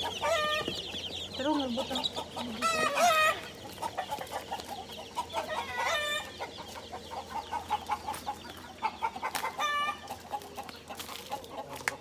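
Chickens clucking and calling, a string of short pitched calls, with a louder, longer call about three seconds in.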